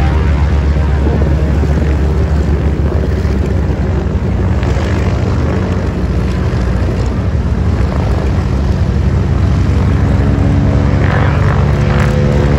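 Several propeller warbirds' piston engines running together on the ground in a loud, steady drone.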